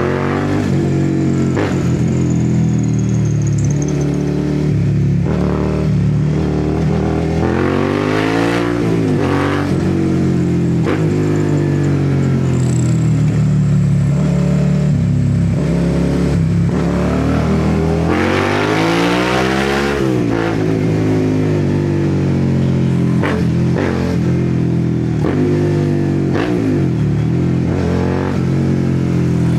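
Suzuki SV650's V-twin engine through an aftermarket slip-on exhaust with the catalytic converter removed, heard from the rider's seat while riding. The revs climb and fall back repeatedly as it accelerates and shifts, with a long pull about two-thirds through.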